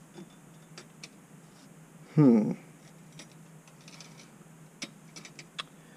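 Faint, scattered clicks of metal parts being handled as a motor mount bracket is worked into place under the hood of a car. About two seconds in comes one short vocal 'hmm' with a falling pitch. A steady low hum sits underneath.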